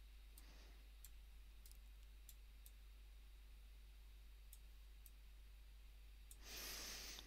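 Faint computer mouse clicks, a handful of sharp ticks spread irregularly over near-silent room tone, with a short soft rush of noise near the end.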